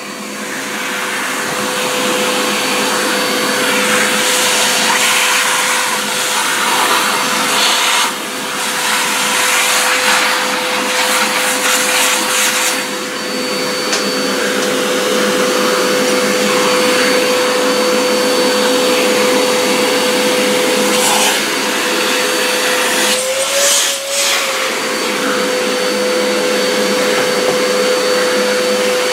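Vacuum cleaner motor running steadily with a constant whine, starting up and building over the first couple of seconds, the pitch wavering briefly near the end. It is most likely clearing plastic drill shavings from the freshly drilled hole.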